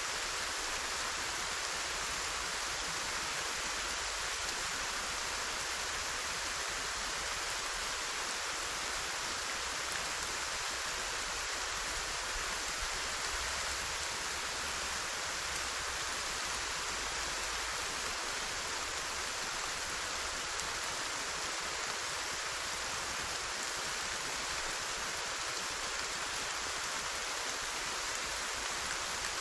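Steady heavy rainfall, a dense even hiss of drops with no thunder.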